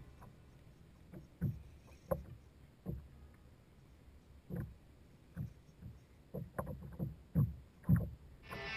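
Small waves slapping against a boat's hull: irregular low knocks, about one or two a second. Music comes in just before the end.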